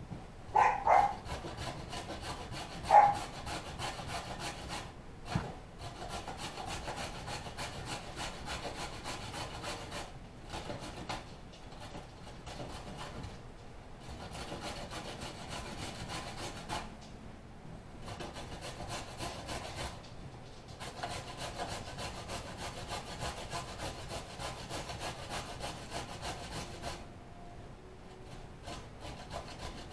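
Vegetables being grated by hand on a grater: fast, repeated rasping strokes, with brief pauses between runs. Two short, louder pitched sounds come about one and three seconds in.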